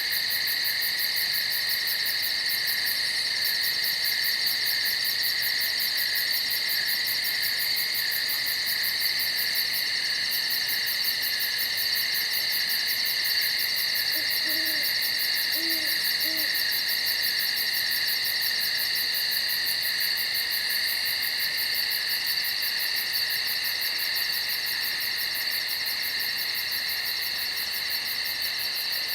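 Steady high-pitched insect chorus with a fast, even pulsing trill on top; about halfway through, an owl hoots three times in quick succession.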